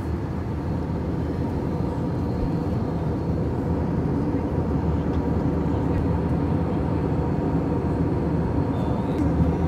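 Steady jet airliner cabin noise in flight: an even low rush of engines and airflow with a faint steady hum, heard from inside the cabin at a window seat.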